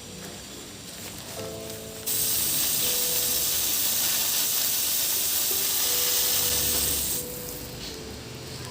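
A steady, loud hiss that starts suddenly about two seconds in and stops suddenly about five seconds later, over soft background music.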